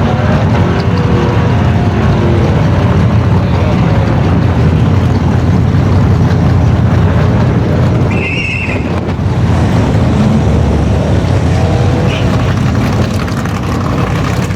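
Holden VP Commodore running flat out on a drag-strip pass, its engine loud and steady under full throttle with the automatic doing the shifting.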